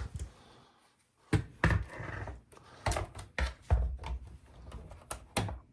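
Irregular knocks and clicks of a dishwasher's plastic control panel and door being handled, starting about a second in.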